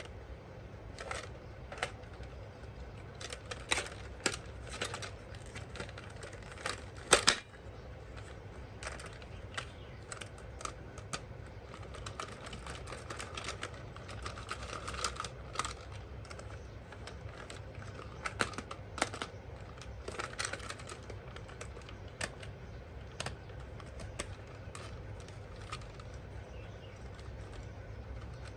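Hard plastic toy parts and packaging being handled: irregular clicks and taps, the loudest a little after seven seconds in, over a steady low hum.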